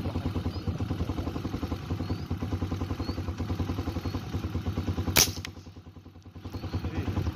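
An engine idles with a steady, rapid throb. About five seconds in comes a single sharp crack from a pre-charged pneumatic (PCP) air rifle shot at a perched dove, the loudest sound here. The engine sound dips for about a second after the shot.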